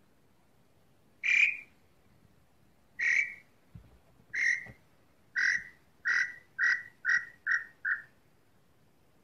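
Tataupa tinamou (lambu pé-roxo) call: nine whistled notes that start about a second in, come faster and shorter each time, and fall slightly in pitch.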